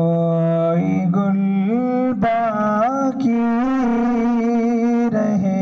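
A man singing an unaccompanied Urdu naat into a microphone, holding long notes and bending them with ornamented turns.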